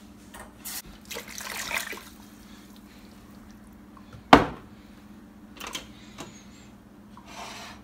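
Liquid being poured into a pot of raw meat and blended tomato-pepper mix, splashing in short spells. There is one sharp knock about halfway through, followed by a few light clicks.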